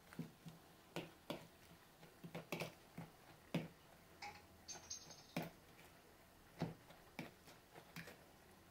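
A metal utensil beating eggs and chopped arugula in a plastic bowl, knocking against the bowl in irregular light clicks, about one or two a second.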